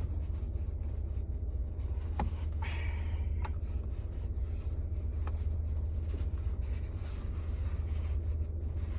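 Steady low rumble of a car while driving, heard inside the cabin, with a few faint clicks.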